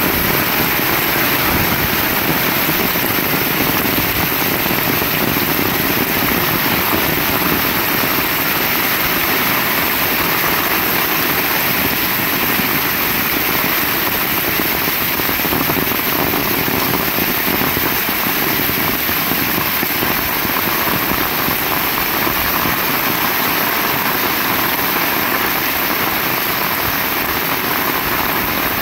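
Heavy rain falling steadily, a dense unbroken hiss.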